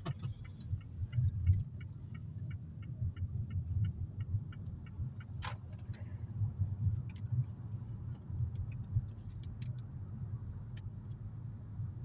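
Inside a moving car: steady low engine and road rumble. For the first four seconds or so the turn indicator ticks evenly, and there is a single sharp click about five and a half seconds in.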